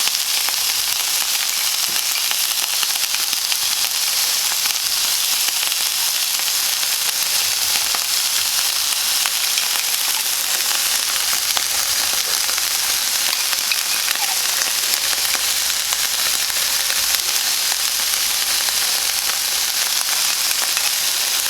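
Chicken breasts frying in a pan: a steady sizzle with fine crackling.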